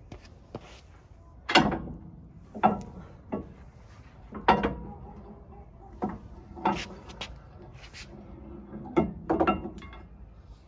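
Sharp metallic clanks and knocks, about nine irregular hits each with a short ring, as the old steering tie rod is worked loose from the steering knuckle.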